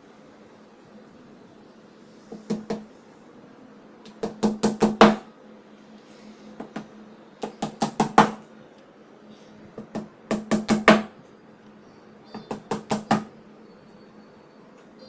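A hammer tapping small nails into a particleboard drawer panel, in five quick runs of two to six sharp taps, each run a second or two apart.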